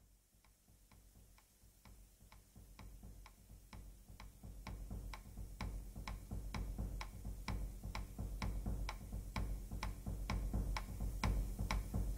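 Steady clock-like ticking, a little over two ticks a second, over a low throb. It fades in from silence and grows louder over the first half.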